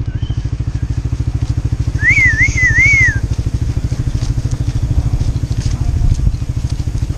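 A steady, loud, low rumble with a fast even pulse runs throughout. About two seconds in, a wavering whistle rises and falls three times over about a second.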